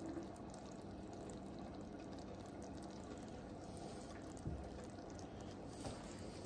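Faint, steady bubbling of sugar syrup boiling and foaming in a pot over a gas burner turned down to its lowest flame, with two soft knocks near the end.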